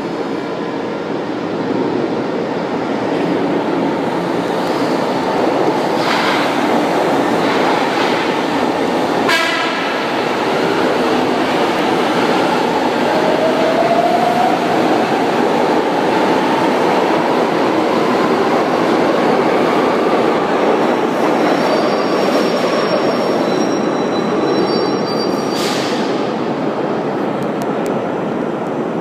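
São Paulo Metro trains in an underground station: a train pulls out past the platform with a continuous rumble of wheels on rail and a slowly rising electric motor whine. Later, another train moving on the opposite track adds a high wheel squeal.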